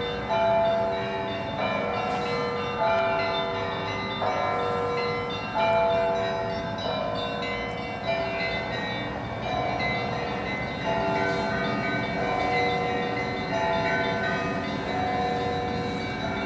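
Church bells ringing a peal: several bells of different pitches are struck together about every second or so, and their tones ring on and overlap.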